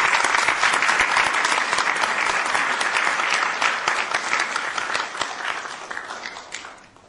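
A roomful of people applauding, many hands clapping together; the applause fades out near the end.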